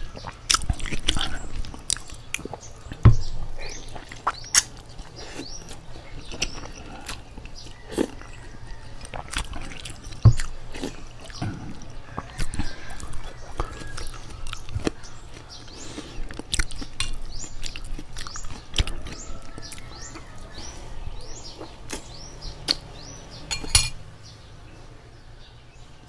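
Close-miked eating of instant noodles: sipping broth, slurping and chewing with wet mouth clicks and smacks, and now and then a sharp clink of the metal spoon or fork against the glass bowl.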